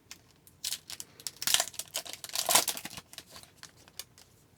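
A hockey card pack's foil wrapper being torn open and crinkled in the hands, with two loud rips about a second and a half and two and a half seconds in, then lighter rustling and clicks as the cards are handled.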